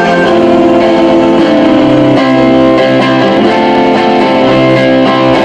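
Electric guitar played live through an amplifier, loud sustained chords ringing out and changing every couple of seconds.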